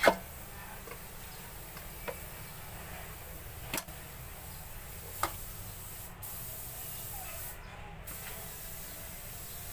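Kitchen handling sounds: a sharp knock right at the start, then a few lighter taps and knocks of a knife and a yellowfin tuna fillet on a cutting board, over a steady background hiss.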